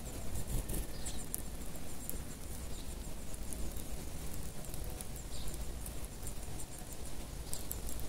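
A flock of Eurasian tree sparrows feeding on scattered seed: many small quick ticks and rustles of pecking in the seed, with a few short faint chirps.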